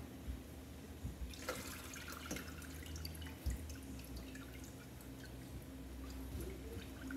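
Water-soaked rice being tipped and scooped from a steel bowl into an Instant Pot's inner pot: wet dripping with scattered light clinks and scrapes, the busiest stretch about one and a half to two and a half seconds in, over a faint steady hum.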